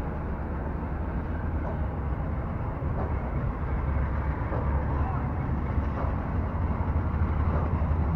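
Steady low rumble of open-air background noise, growing somewhat louder toward the end.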